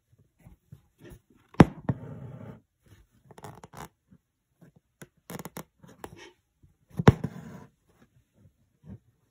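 Embroidery thread drawn through fabric stretched taut in a hoop: twice, about five seconds apart, a sharp tap followed by a short rasp of about a second, with light rustling of fingers on the fabric in between.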